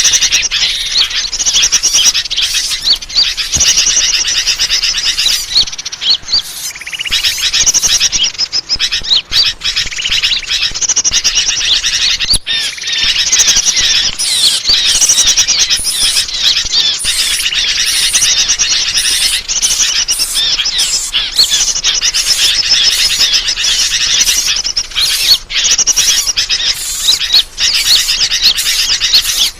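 Busy, continuous chirping and trilling of many small birds at once, a bird-lure (suara pikat) recording meant to draw in all kinds of birds.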